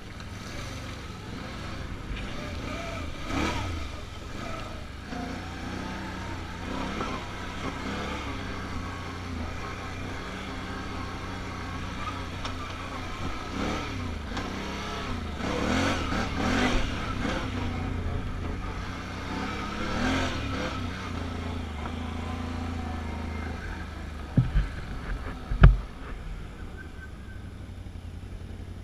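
Can-Am Outlander ATV engine running under way, revving up and down as it crosses mud and dirt, with two sharp thumps near the end, the second the loudest.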